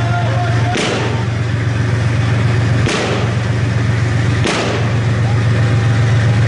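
Tank's diesel engine idling with a steady low drone. Three sharp bangs cut through it, about a second and a half to two seconds apart.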